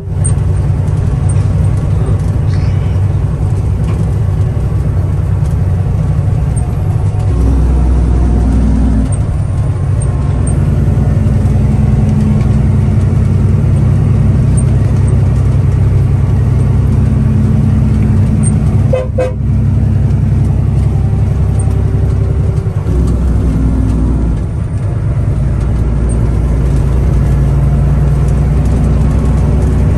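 Heavy diesel engine running steadily with a low drone. The drone swells in its lowest notes about a quarter of the way in, and again for the last stretch.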